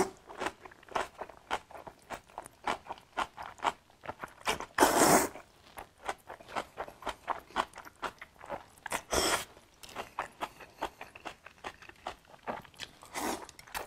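Close-up mouth sounds of a man eating zhajiangmian noodles: quick wet smacking chews, with loud slurps as noodles are sucked in, about five seconds in, near nine seconds and again near the end.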